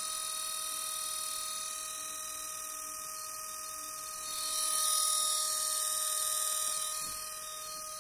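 Lenovo B570 laptop's cooling fan running with a steady whine over a high airflow hiss, swelling louder about halfway through and easing off again. This is the abnormal fan noise of a week-old laptop, a fan fault.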